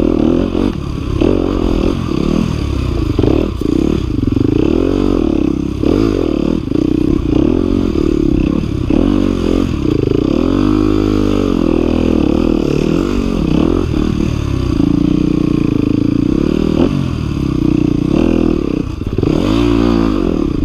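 Yamaha WR250F dirt bike's 250 cc four-stroke single-cylinder engine revving up and down over and over while it climbs a rocky trail at low speed, with one longer rev and drop about halfway through. Short knocks and clatter come from the bike going over rocks.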